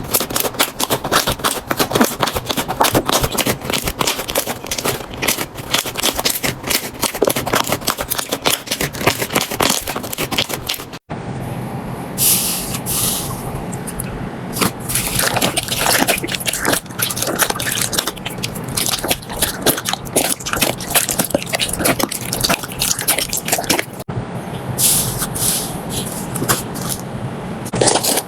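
Slime being worked, making a dense, continuous run of crackling clicks and pops, broken by abrupt cuts between clips about 11 and 24 seconds in.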